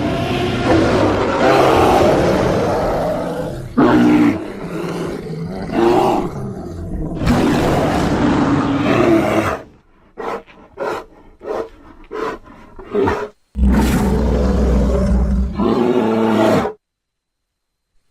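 Composite creature roars built from layered grizzly bear and cave bear recordings: long, loud growling roars, then a run of about seven short grunts. Another deep roar follows, and it cuts off sharply near the end.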